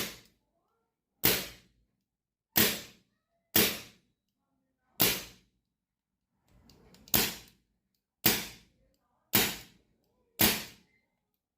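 Predator Mini PCP air rifle firing semi-automatically after a single cocking: about eight sharp shots, roughly one a second, with a longer pause midway.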